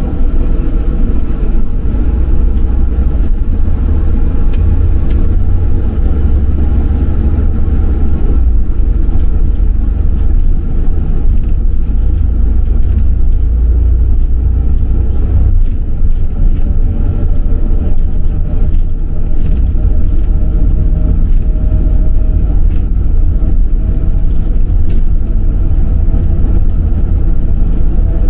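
City bus driving along, heard from inside: a steady low rumble of engine and road noise, with a faint whine that rises slowly in pitch past the middle as it gathers speed.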